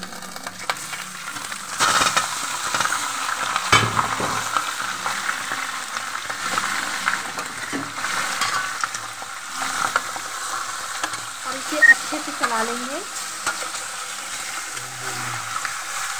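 Raw chicken pieces sizzling in hot oil in a metal pot, stirred with a metal spoon that scrapes and knocks against the pot. The sizzle rises sharply about two seconds in as the chicken goes into the oil.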